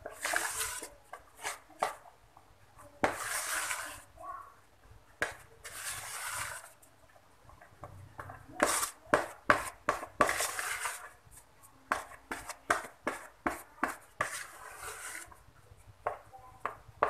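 Silicone spatula stirring and scraping thick cocoa cake batter around a plastic mixing bowl. Repeated light knocks on the bowl are mixed with several second-long scraping strokes.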